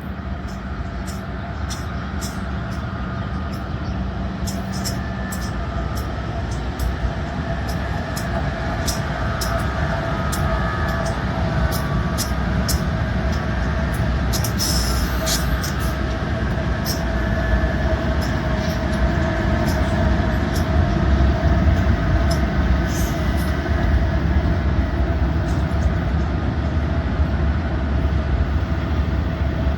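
Diesel freight locomotives running with a deep rumble and a steady engine tone, growing gradually louder, while sharp clicks from the rails and wheels sound throughout.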